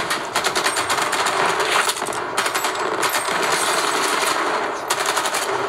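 Rapid automatic rifle fire from a film's shootout soundtrack: bursts of many shots a second with no break long enough to be silence.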